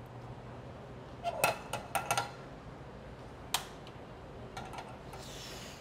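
Kitchen pans and utensils handled at a countertop burner: a few light clinks and clicks, one sharper click about halfway through, and a brief soft hiss near the end.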